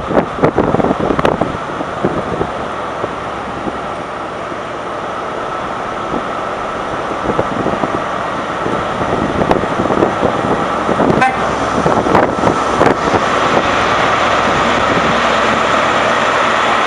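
HST diesel power cars pulling away, their engine noise rising steadily and growing louder. Scattered clicks and knocks in the first couple of seconds, and a few more about eleven to thirteen seconds in.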